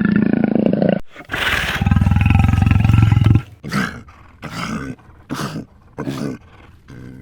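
Calls of a large animal. One call is cut off about a second in, then comes a long, loud, low call, followed by four short calls.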